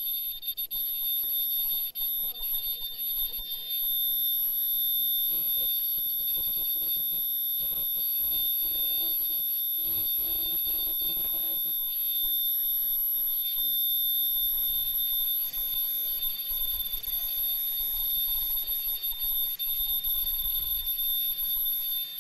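Disposable face-mask production machine running, giving off a steady high-pitched whine made of a few held tones, with faint clicking from its rollers and gears underneath. The whine cuts in at the start and cuts off after about twenty-two seconds.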